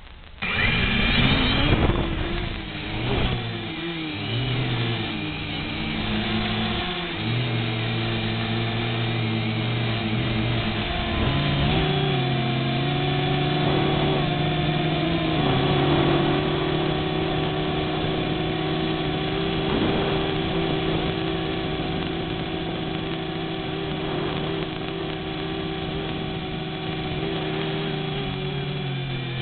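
XK X251 quadcopter's motors whining in flight, starting suddenly about half a second in. The pitch shifts up and down with the throttle for the first ten seconds or so, then holds steadier.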